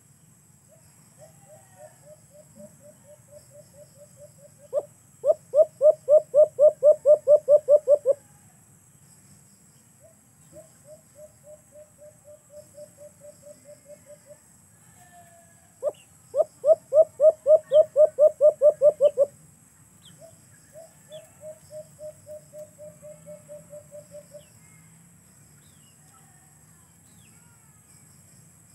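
A caged dove (alimukon) cooing in long runs of even, low-pitched notes. Soft runs of about three to four coos a second alternate twice with loud, faster runs of about a dozen coos, each loud run opened by a single sharp note.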